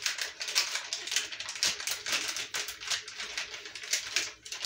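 Fingers scraping and stirring runny poppy seed paste around a ceramic bowl, a quick, even run of scratchy strokes, about three or four a second.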